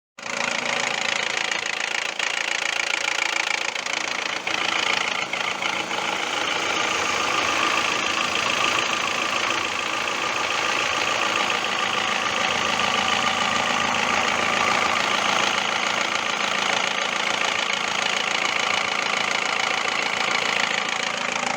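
2002 Toyota RAV4 four-cylinder engine running with a steady, rapid knock. The knock is a sign of oil starvation, which the owner traced to a clogged oil pickup screen in the sump.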